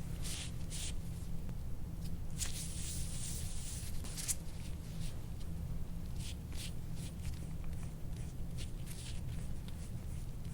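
Soft-tissue scraping tool drawn in repeated strokes over the skin of a patient's back, each stroke a short hiss, with one longer stroke about two to four seconds in. A steady low hum runs underneath.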